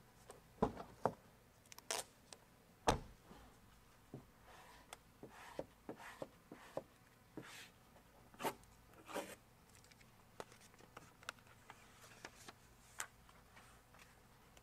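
Vinyl stripe graphic and its backing paper being handled, peeled and pressed onto a car door: irregular crinkles, rustles and short sharp taps, none of them lasting long.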